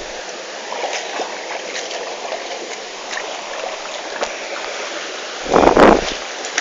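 Mountain stream running steadily over rocks, with scattered small clicks and knocks, and a sudden loud burst of noise about five and a half seconds in.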